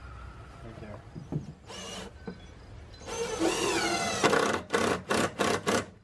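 Cordless drill driving a screw into a pine box: a short run about two seconds in, a longer run around three seconds in whose pitch wavers as the screw bites, then about five quick trigger bursts to seat it.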